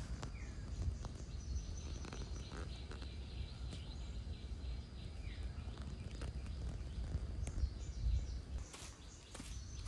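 Outdoor ambience: a steady low rumble and a thin steady high tone, with a few short bird chirps and scattered light clicks.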